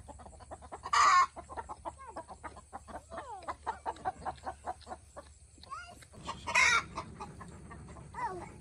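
Chickens clucking rapidly as a hen is caught and held, with two loud, harsh squawks, one about a second in and another a little past six seconds.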